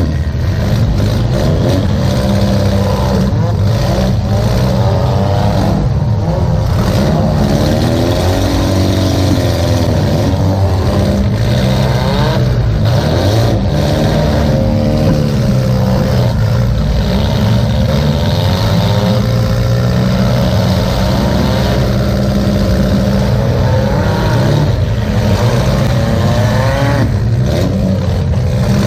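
Demolition derby car's engine heard from inside the stripped cabin, running hard and revving up and down as the car manoeuvres, with the exhaust pipe coming straight up through the hood.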